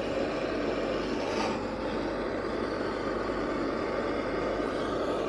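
Handheld gas blowtorch burning with a steady rushing flame, played on the alloy hub of a moped's front wheel to warm it so that a stuck wheel bearing will knock out.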